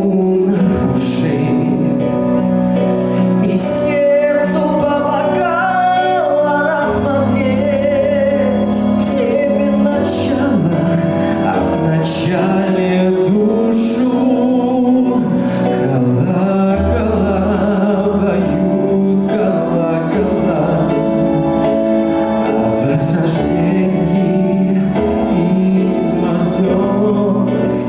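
Music: a song sung over instrumental accompaniment, the voices holding wavering sustained notes.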